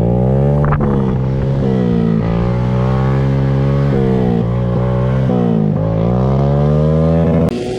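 Honda Grom's small single-cylinder engine revving up and down repeatedly, the pitch rising and falling every second or so as the throttle is worked; the sound breaks off abruptly near the end.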